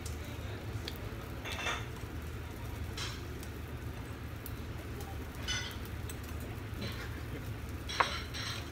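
Eating at a yakiniku table: a steady low hum, with a few brief sounds of dishes and eating on top and a sharp click near the end.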